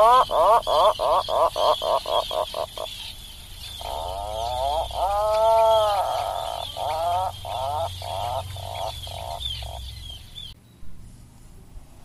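Atlantic puffin giving its low, groaning call. A fast run of short pulsed notes is followed by a second call: one long note that rises and falls, then a string of short notes that slow and fade. A faint wavering high tone sits behind the calls until the sound drops away near the end.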